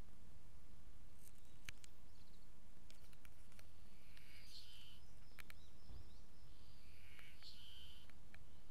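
Ezo harusemi cicadas calling, two short song phrases about four and seven seconds in, with a few sharp clicks over a low steady rumble.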